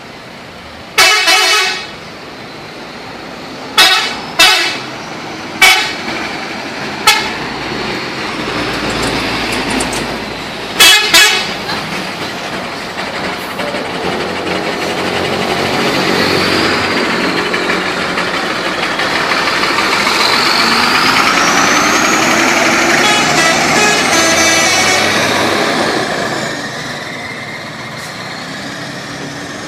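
Telolet musical horn of a PO Linsaka bus sounding in a series of short, loud pitched blasts, some in quick pairs. After the blasts, the bus's vehicle noise with gliding tones builds for about ten seconds and then drops away.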